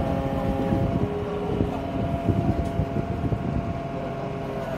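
Crane truck's engine running steadily while driving the truck-mounted crane, its tone shifting slightly about a second in.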